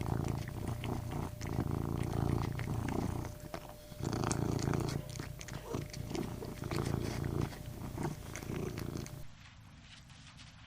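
An animal eating, with many short crunching clicks over a low, pulsing rumble like a purr; the sound cuts to a quieter clip about nine seconds in.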